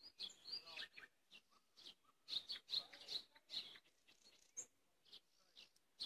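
Songbirds singing: a string of short, high chirps and whistles, some sliding in pitch, coming thickest about two to three and a half seconds in.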